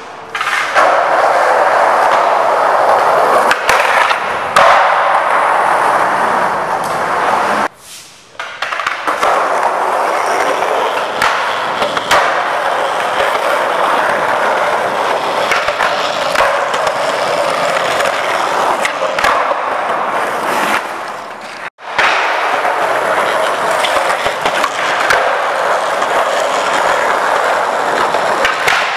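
Skateboard wheels rolling over rough concrete, with sharp clacks of the board popping and landing, and trucks grinding along the edge of a bench ledge. The sound cuts off briefly twice.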